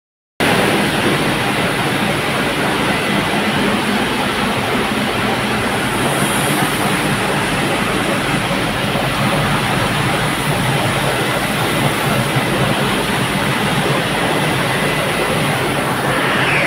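Screw-making machines running together, a steady dense metallic clatter of machinery and screws pouring off chutes into metal bins; it turns a little brighter and hissier near the end.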